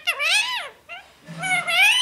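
Pet rose-ringed parakeet giving two drawn-out, high-pitched calls that rise and fall in pitch, the second starting about a second in.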